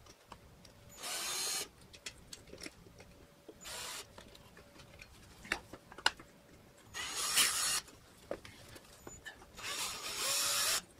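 Cordless Ryobi drill/driver whirring in four short bursts, the last about a second long, as it undoes the fasteners holding the carburetor onto the small engine, with light clicks of the tool and parts between bursts.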